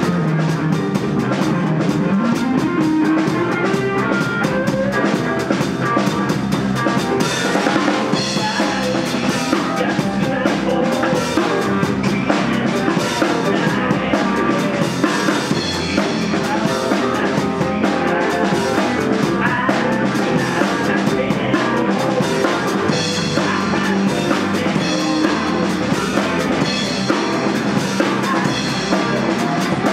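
Live rock band playing: electric guitars over a drum kit keeping a steady beat with bass drum and snare.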